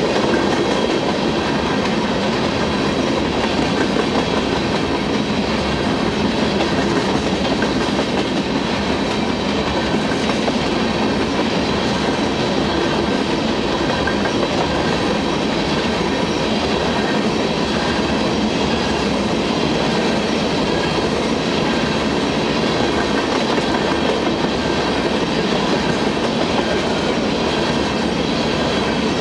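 Coal train hopper cars rolling past close by: steel wheels running on the rails in a steady, unbroken rumble, with faint steady ringing tones over it.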